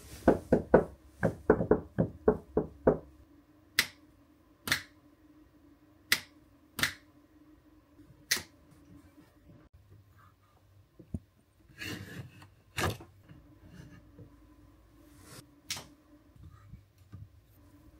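Knuckles knocking on a capsule-hotel bunk's wooden frame and overhead panel. A quick run of about a dozen knocks at roughly four a second comes first, then single knocks spaced a second or more apart, with a few more knocks about two-thirds of the way through.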